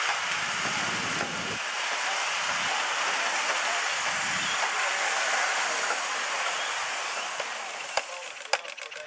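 Steady hiss of steam from a passing miniature live steam locomotive. About eight seconds in it gives way to sharp, irregular ticks from a model hit-and-miss engine running.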